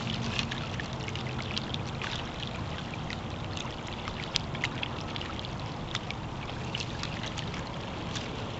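Lake water lapping and trickling at a rocky shore, with small splashes and scattered clicks as a stringer of panfish is dipped into the water and lifted out dripping.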